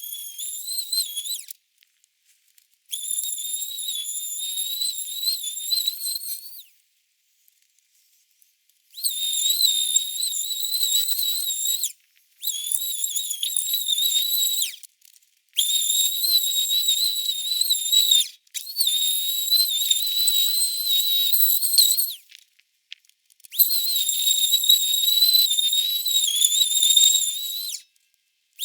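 Power sander whining at high pitch while sanding down the toolbox with 220-grit pads, in about seven runs of a few seconds each, each stopping briefly before starting again.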